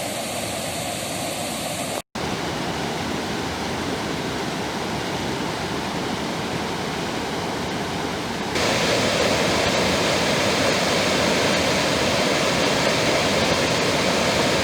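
Steady rush of water falling over a waterfall. It cuts out for an instant about two seconds in, and is louder and brighter from about eight and a half seconds in.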